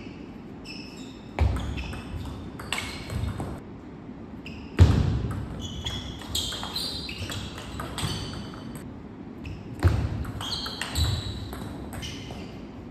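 Table tennis rally: the plastic ball knocking off rackets and the table at irregular intervals, with short squeaks of sports shoes on the hall floor between the strokes. The loudest knock comes about five seconds in.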